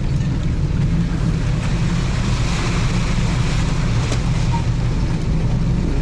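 A vehicle driving on a rough unpaved forest road: the engine runs at a steady pitch under a constant hum of tyre and road noise. The road noise swells for a couple of seconds in the middle.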